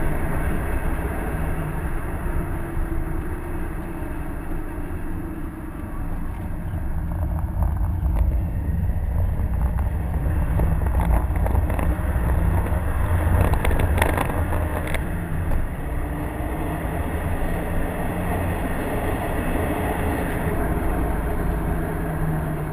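Inside the cabin of a 2011 Subaru WRX: its stock EJ255 turbocharged flat-four engine under way along a straight, over a heavy rumble of road and tyre noise. The engine note rises and falls more than once.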